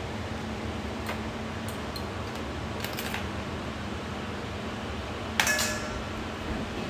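A few light clicks and taps of a small metal mesh strainer and utensils, then one sharp clink with a short metallic ring about five seconds in, as the strainer strikes a stainless steel bowl.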